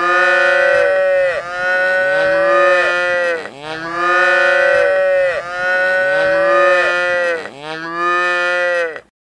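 Cows mooing: about five long moos in a row, each lasting a second and a half or so, with short breaks between them. The sound cuts off suddenly near the end.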